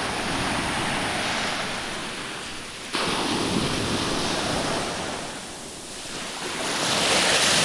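Surf washing up over a sandy beach and drawing back, a steady hiss of foam and water that swells to its loudest near the end.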